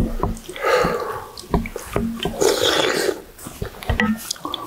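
People slurping squid and radish soup from spoons, two long wet slurps, with light clinks of spoons and chopsticks against stainless steel bowls.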